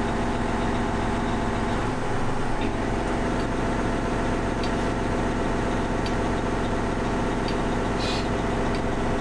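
John Deere 9620R four-wheel-drive tractor's diesel engine running steadily while its hydraulics unfold a field cultivator. The engine note shifts briefly about two seconds in, and a short hiss comes about eight seconds in.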